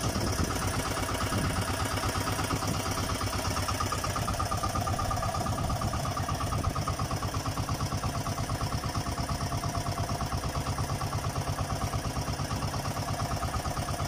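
Fishing boat's engine running steadily with an even, rapid beat.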